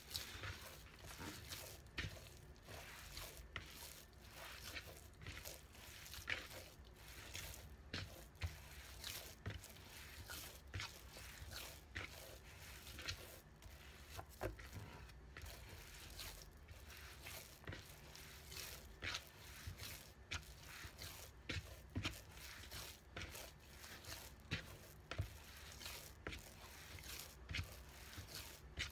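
A hand kneading soft dough in a plastic bowl: irregular squishes and soft thuds as the dough is pressed and pushed against the bowl, about one a second.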